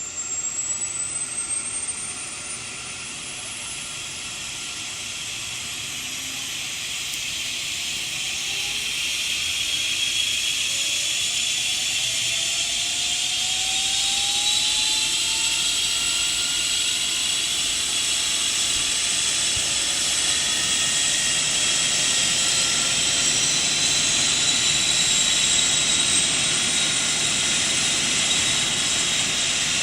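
Helicopter engine running with a high whine that slowly rises in pitch, growing louder over the first ten seconds or so and then holding steady.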